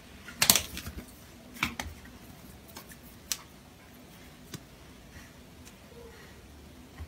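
Scattered sharp taps and clicks of two Sphynx cats scuffling, their paws and claws striking the hard tiled floor. The loudest comes about half a second in, with a few lighter taps after it.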